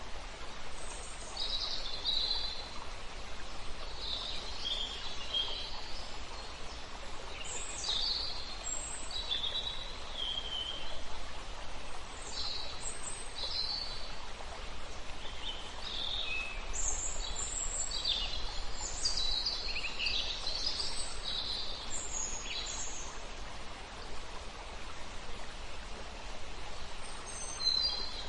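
Small birds chirping and trilling in short, scattered high-pitched calls over a steady background hiss. The calls come thickest past the middle and thin out near the end.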